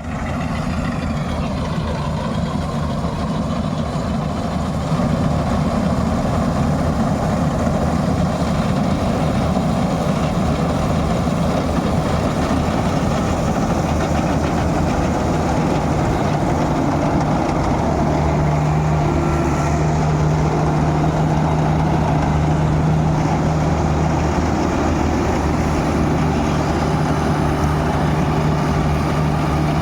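Claas Crop Tiger 40 combine harvester's diesel engine running steadily, growing louder about five seconds in.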